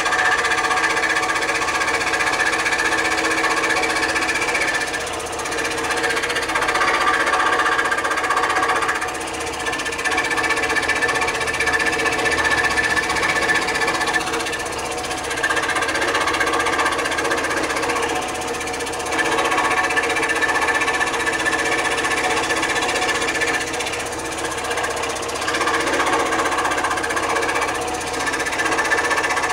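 PS Wood scroll saw running with a number 5 Super Sharp blade cutting through pine. It makes a steady reciprocating buzz whose loudness and tone shift every few seconds as the cut goes on.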